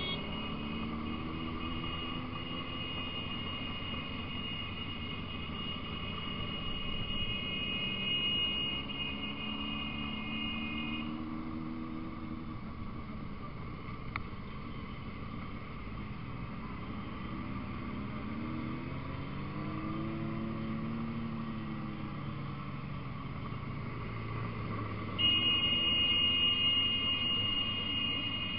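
Motorcycle engines running in a slow group ride, the engine note rising and falling several times. A steady high-pitched whine sits over the engines for the first ten seconds or so and comes back, louder, for the last few seconds.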